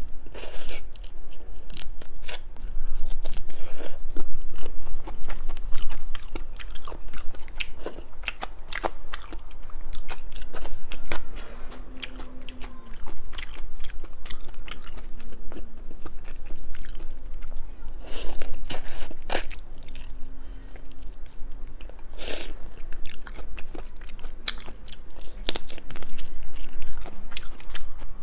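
A person eating seasoned seafood close to the microphone: chewing and crunching, with many sharp clicks and crackles throughout.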